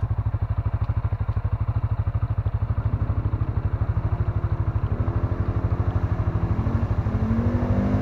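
A CFMoto ATV's engine idles with a steady, low, even throb. A second ATV's engine comes closer, rising out of it from about halfway in, growing louder and climbing in pitch near the end.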